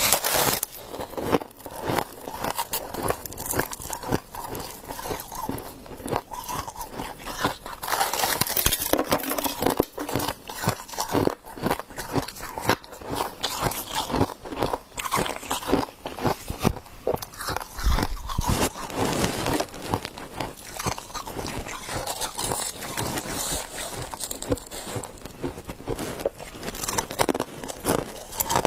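Close-up crunching and chewing of frost, a rapid irregular run of crisp bites and crunches that goes on throughout.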